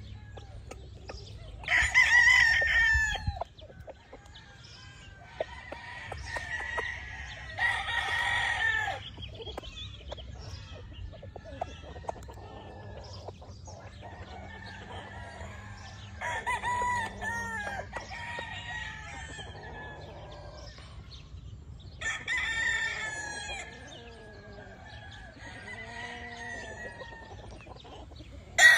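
Gamefowl roosters crowing in turn, about five loud crows of a second or two each, the loudest about two seconds in. Quieter clucking and calls come in between, over a low steady hum.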